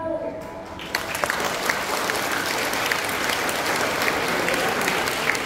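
Audience applause breaking out about a second in, a dense patter of many hands clapping, just as the last held note of the dance music fades away.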